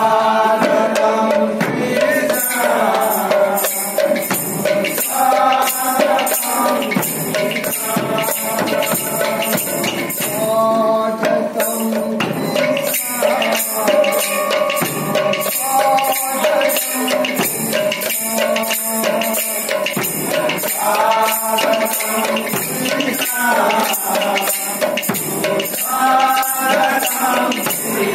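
Sankirtan devotional music: men's voices singing a chant in short phrases every few seconds, over a barrel drum and a steady fast clashing of small brass hand cymbals.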